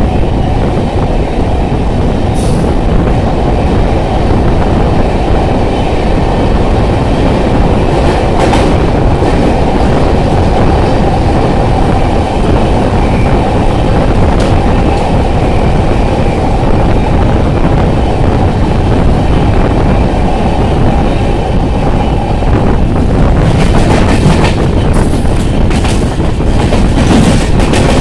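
LHB passenger coach running through a station at speed, heard through an open coach window: a loud, steady rumble with wheels clattering over rail joints. From about 23 seconds in the clatter grows harsher and denser as the train crosses points and runs alongside another train.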